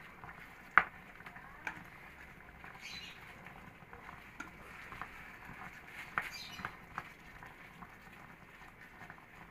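Plastic spatula stirring chicken and broccoli in a thick cream sauce in an electric pot: soft irregular scrapes, squelches and small clicks, with one sharp tap about a second in and a few lighter ones later.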